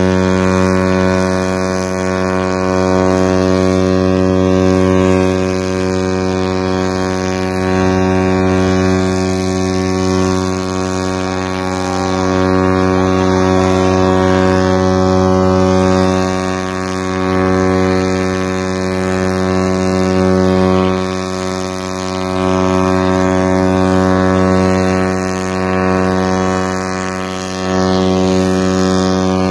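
A ship's horn sounding one deep, unbroken note, held steady with slight swells in loudness.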